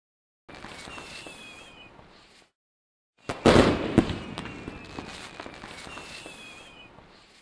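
Fireworks sound effect: a crackling hiss with faint falling whistles fades out, then after a short gap a loud burst with sharp pops about three and a half seconds in, followed by crackling that slowly dies away. The pattern repeats exactly, as a looped clip does.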